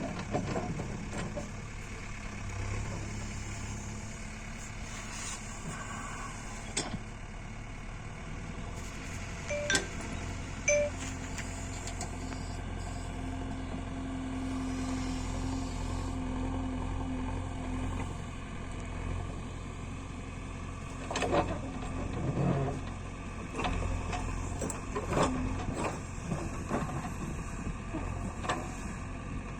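Diesel engine of a JCB 3DX backhoe loader running steadily, its pitch rising a little for several seconds about a third of the way in as it works under load. A few sharp clanks cut through, one about ten seconds in and a cluster in the last third.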